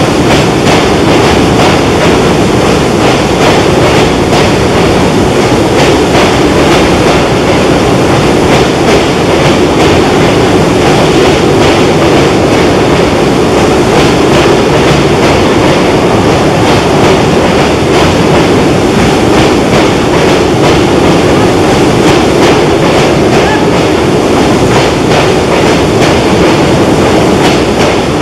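Passenger coaches of an express train rolling across a steel truss bridge: a loud, steady rumble with a continuous clickety-clack of wheels passing over rail joints.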